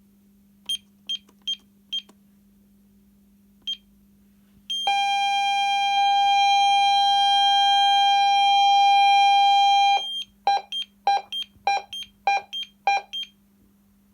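Intruder alarm keypad and extension speaker sounding. First come four short high beeps and then a single beep. Next a steady tone at two pitches, one high and one lower, holds for about five seconds, then breaks into rapid pulsed beeps, about three a second.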